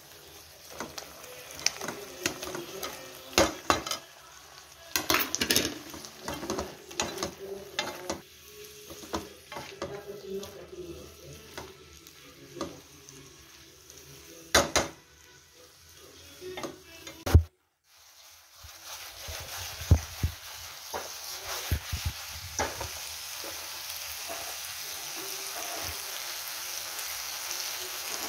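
Fried paneer cubes tipped into a wok of thick chilli sauce and stirred with a silicone spatula: repeated scraping and tapping against the pan over a sizzle. After a short break about two thirds of the way through, the sauce sizzles steadily, with a few spatula clicks.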